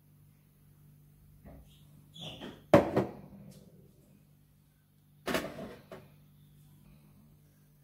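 Hard knocks of crockery being set down on a kitchen counter: a loud double knock about three seconds in, then another about five seconds in.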